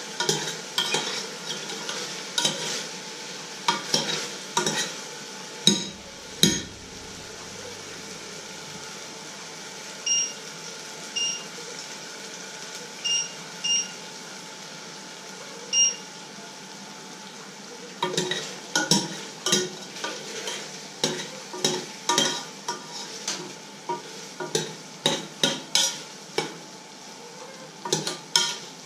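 Spoon stirring in a stainless steel pot, with many quick clinks and scrapes against the pot's sides that thin out in the middle. Around the middle come a few short electronic beeps, and just before them two louder knocks.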